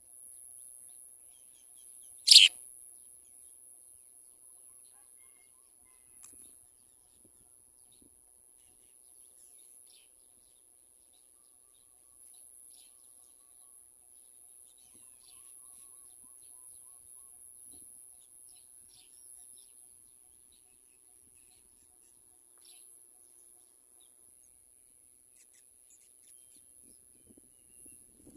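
House sparrows chirping faintly and sporadically, with one sudden, loud, sharp sound about two seconds in.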